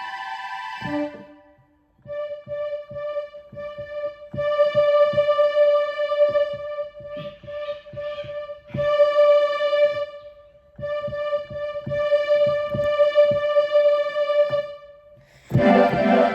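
A steady buzzy electronic tone with many overtones, held for several seconds at a time with short breaks, over irregular clicking knocks.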